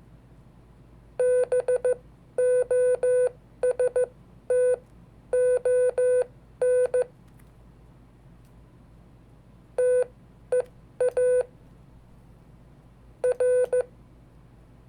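Morse code keyed by hand through a code practice oscillator: a steady mid-pitched beep switched on and off in dits and dahs. The dits and dahs come in three groups split by longer pauses, a three-word message sent a second time.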